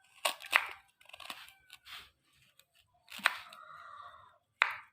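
Knife cutting through red ginger root: about half a dozen separate sharp cuts, irregularly spaced.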